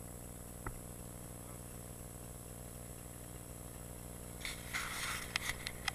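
Dirt bike engine idling with a steady low hum, with a single short click about a second in. Near the end a rustling noise comes in with several sharp clicks.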